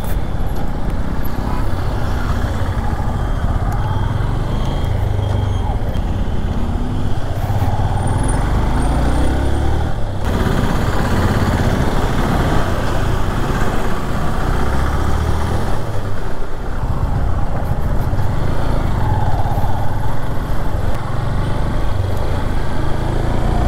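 Motorcycle on the move, heard from a helmet-mounted camera: engine and road noise under heavy wind buffeting on the microphone, with a low rumble that keeps swelling and easing.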